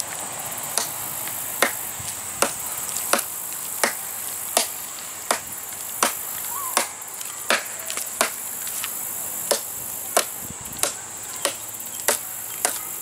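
Ontario Knife Company SP8 machete chopping into a 3 to 4 inch log: a steady run of sharp chops, about three every two seconds, each blade strike biting into the wood. A steady high insect buzz runs underneath.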